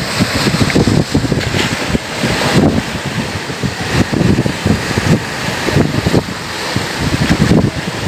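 Strong gusty wind buffeting the microphone over the rush of rough, choppy waves breaking at the shore.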